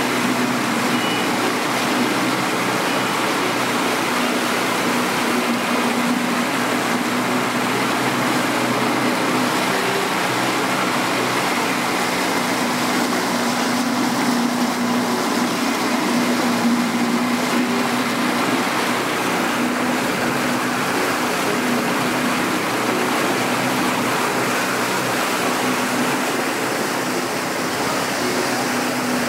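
Boat engine running steadily, a constant hum under a loud, even rush of water.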